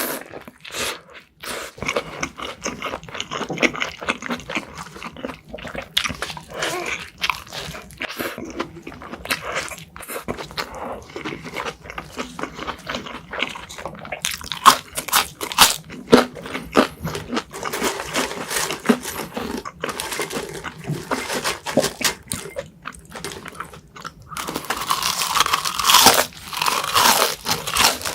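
A person biting and chewing a juicy burger, many short wet crunches in quick succession, growing louder and denser for a few seconds near the end.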